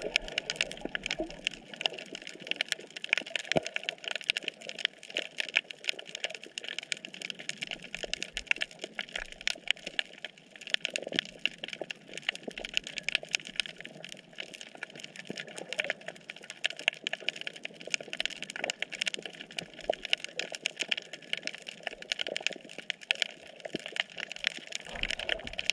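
Snapping shrimp crackling on a reef, heard underwater: a dense, steady crackle of countless tiny clicks.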